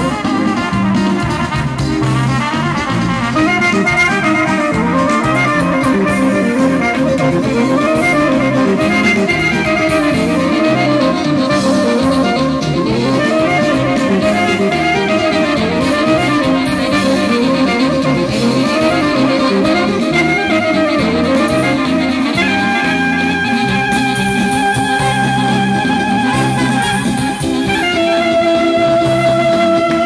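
Live Macedonian folk dance music from a small band, violin and a wind instrument playing a fast, ornamented melody over a steady low beat. In the last several seconds the band switches to long held notes.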